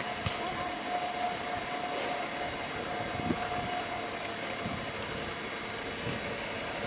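Small battery-powered electric boat motor running with a steady, thin whine that stops about two-thirds of the way through, over a low background hiss with a couple of faint clicks.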